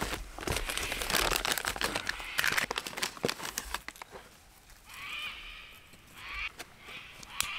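Plastic packet of firelighters crinkling and rustling as firelighters are pulled out and pushed into stacked kindling, with light knocks of wood. From about five seconds in, quieter, with high wavering vocal sounds.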